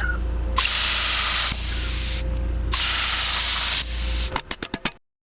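Three bursts of hissing spray, each about a second long with short pauses between them, over a steady low hum. A quick run of about six clicks follows near the end, and the sound then cuts off abruptly.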